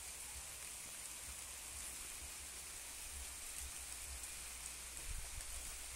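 Steady rain falling, an even hiss, with a low rumble underneath that grows a little about five seconds in.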